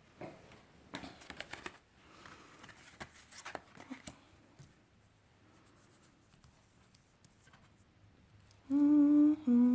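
Soft rustles and clicks of tarot cards being picked up and handled. Near the end a woman starts humming a tune, stepping from note to note.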